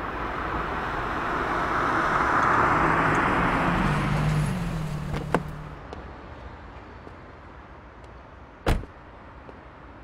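BMW Z4 roadster driving up and stopping, its tyre and engine noise swelling and then settling to a low hum that stops a few seconds later. A click comes as the door opens, and about nine seconds in a single loud car-door slam is heard.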